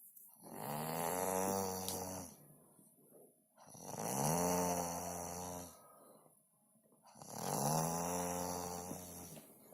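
Snoring in a sleep: three long, drawn-out snores, each about two seconds, coming about every three and a half seconds with quiet breathing gaps between.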